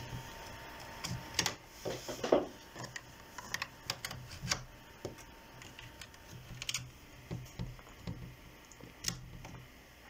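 Scattered light clicks and taps of hands working at a laptop desk: keys, mouse and USB plugs being handled, with a few louder knocks about two seconds in.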